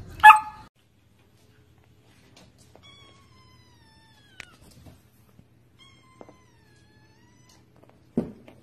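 A fluffy white puppy gives a short high squeak as it yawns, then kittens meow twice, faintly, each meow long and falling in pitch. A thump near the end.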